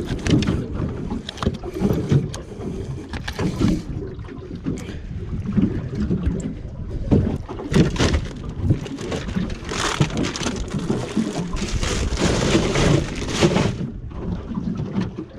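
Wind buffeting the microphone over a steady low rumble, with irregular knocks and scrapes as a large Samson fish is handled on the aluminium deck and pushed into a plastic icebox. A stronger rushing hiss comes in the second half.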